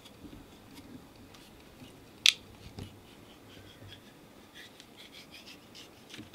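A knife blade slitting open a short length of black polyethylene dripper line: faint scraping and small ticks of the blade in the plastic, with one sharp click about two seconds in and a run of small clicks near the end.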